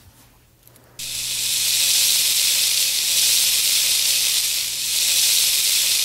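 Heavy-rain sound effect: a steady hiss of pouring rain that starts suddenly about a second in.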